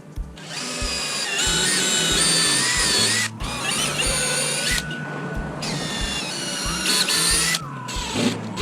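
Electric drill/driver whining in about three runs, its pitch shifting as the speed changes, as it drives screws into wood. Background music plays underneath.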